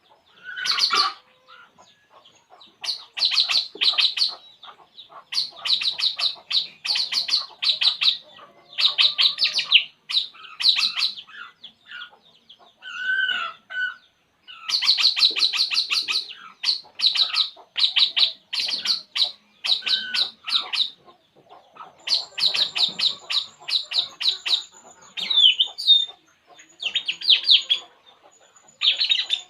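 A burung puling bird chattering in rapid trills: runs of quick, sharp, high-pitched notes lasting about a second each, repeated again and again with short pauses, with an occasional lower warbled note in between.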